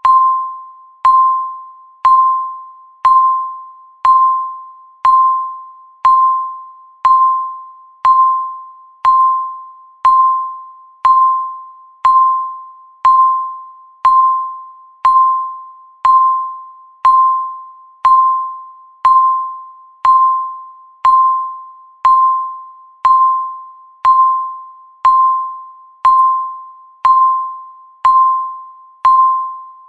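Countdown timer's tick sound: a short, single-pitched ping once every second, each one struck sharply and fading before the next.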